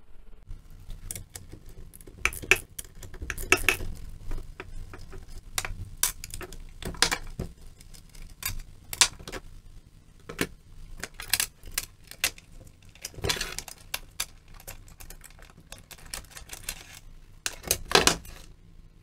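Irregular metallic clicks and clinks of a PIT chainsaw being taken apart by hand: nuts, the side cover and the bar coming off, with chain links rattling near the end as the chain is pulled off the bar.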